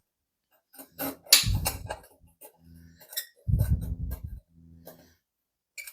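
Small steel pieces clinking and knocking against metal as they are handled and set in place for tack welding, the loudest clatter about a second in; a low hum comes and goes with a second burst of clatter past the middle.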